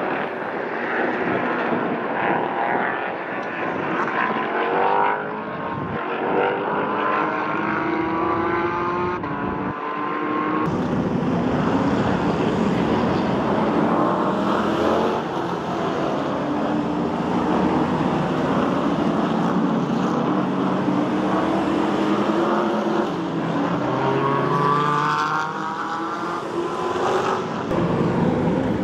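Racing cars' engines running hard past the track edge, one car after another, the pitch climbing through the gears and then dropping as each goes by.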